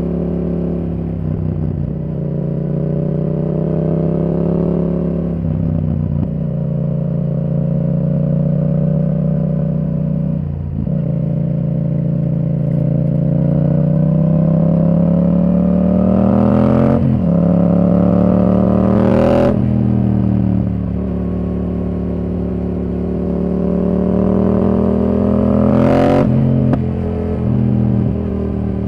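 Yamaha R7's 689 cc parallel-twin engine through a Yoshimura R77 exhaust with the dB killer removed, heard from the rider's seat with wind noise. The pitch rises as the rider accelerates and falls away when the throttle is closed. It snaps down abruptly at three quick-shifter upshifts in the second half.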